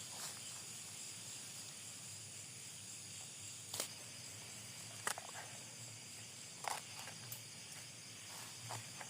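A steady high chorus of night insects, with a few short sharp crunches or clicks about four, five and seven seconds in.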